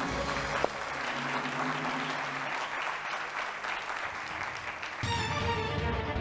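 Studio audience applauding a correct answer over game-show music. About five seconds in, the clapping gives way to a new music cue with steady held tones.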